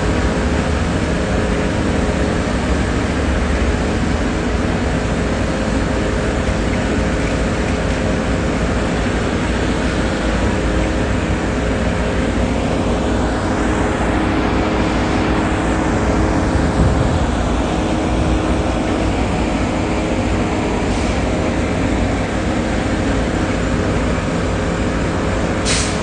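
Steady city street traffic noise with an engine humming close by. About halfway through a vehicle passes, its sound rising and then falling away.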